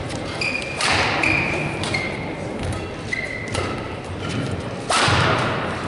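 Badminton rally on an indoor court: court shoes squeak briefly several times while rackets strike the shuttlecock with sharp cracks. The loudest hits come about a second in and near the end.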